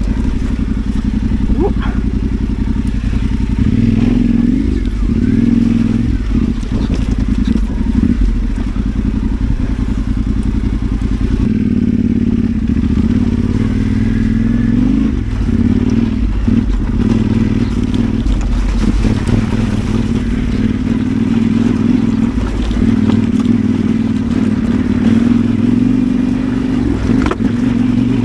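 Adventure motorcycle engine running steadily at trail speed, its pitch rising and falling a little, with occasional knocks and rattles from the bike over rough ground.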